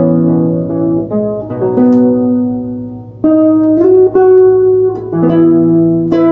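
Guitar music: a guitar arrangement of a slow song, plucked melody notes ringing over held low notes, with a short lull about three seconds in.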